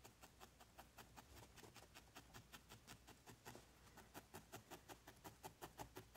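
Felting needle stabbing rapidly into a ball of white wool, a faint, even run of soft ticks at about six a second. The needle is audible because the wool is becoming dense as it felts.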